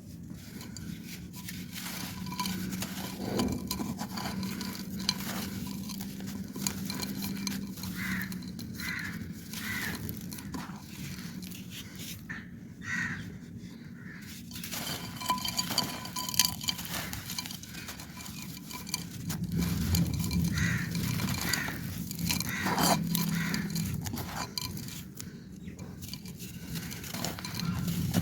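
Dry clay pot being crumbled, crunching with many small gritty crackles. A low steady hum runs underneath.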